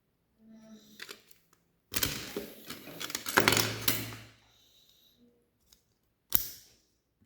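Plastic Lego pieces handled during building: a few small clicks, then a dense run of clicking and rattling for about two seconds, and one sharp snap about six seconds in.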